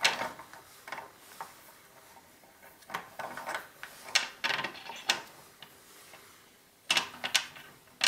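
Bottom bracket press tool being slackened off by hand: its metal handles and nuts turned on the threaded rod, giving a string of irregular metallic clicks and clinks, busiest in the middle and again near the end.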